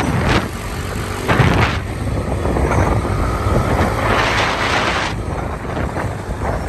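Wind rushing over the microphone with a steady low rumble of road noise while moving along the race route. There are two louder gusts of hiss, about a second in and again around four seconds.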